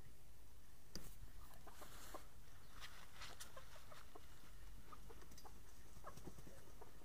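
Hens clucking in short, scattered calls, with scratches and rustles in dry dirt as one hen pecks at another hen that is dust-bathing.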